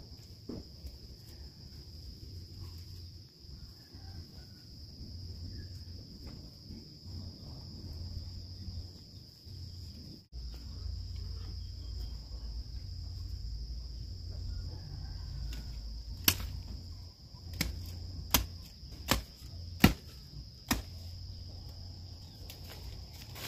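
Insects droning with a steady high-pitched buzz over a low outdoor rumble. In the second half, a run of about seven sharp snaps, the loudest sounds, as leafy garden plants are pulled up and broken by hand.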